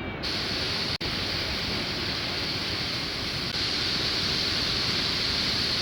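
Rushing whitewater rapids: a steady roar of churning water. It drops out for an instant about a second in and comes back slightly louder after about three and a half seconds.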